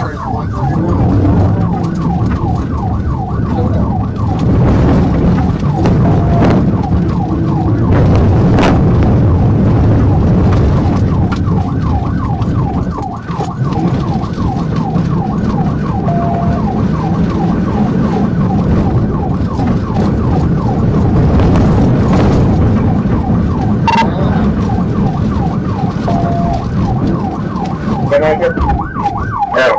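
Police car siren in a fast yelp, rising and falling several times a second, over the heavy rumble of the patrol car driving across rough pasture ground.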